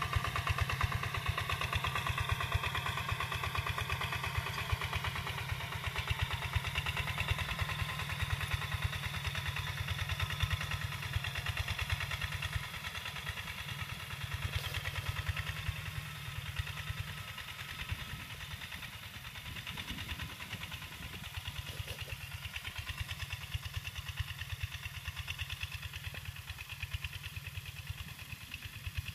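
Single-cylinder diesel engine of a two-wheel walking tractor running steadily under load while it pulls a disc plough through dry soil, a fast even chugging. It grows gradually fainter in the second half as the tractor moves off across the field.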